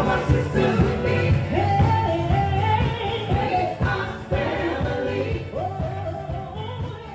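A live band playing with singing over a steady beat. The music gradually fades down over the last few seconds.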